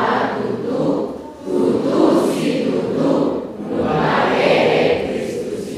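A church congregation speaking a response in unison, many voices together in three phrases. It is the Batak Easter greeting "Selamat Paskah, ma tutu tutu situtu, nunga hehe Kristus" (Happy Easter, truly, Christ is risen).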